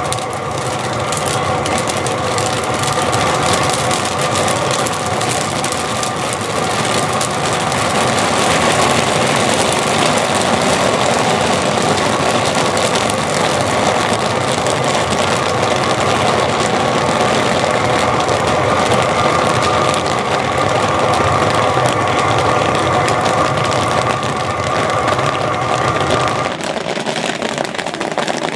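Kettle corn cooking in a large open kettle: dense crackling of popping corn and a wooden paddle stirring, over the steady noise of the kettle's propane burner. A steady tone in the noise cuts out near the end.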